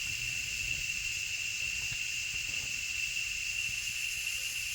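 Insects droning steadily in one unbroken high tone, with a fainter hiss above it.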